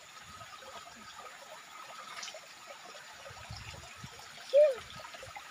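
Shallow stream trickling over stones, with a brief voice sound about four and a half seconds in.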